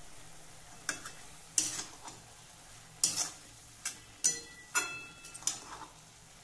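Flat metal spatula scraping and clinking against a steel kadhai while stirring grated radish, about eight strokes with uneven gaps and one briefly ringing near the middle. A faint steady sizzle from the cooking radish runs underneath.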